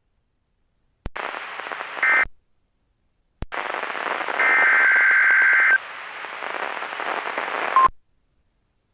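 NOAA Weather Radio Specific Area Message Encoding (SAME) alert header: static-laden data squawks with short silences between them, marking the start of a new warning broadcast. The first stretch is about a second long and the second runs several seconds.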